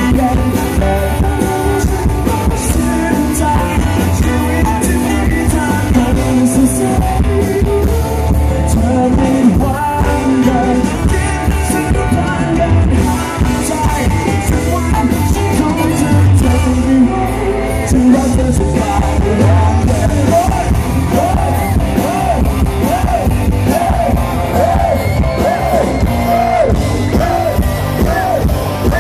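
Live rock band playing through a PA, with electric guitars, bass and a drum kit under a male lead singer.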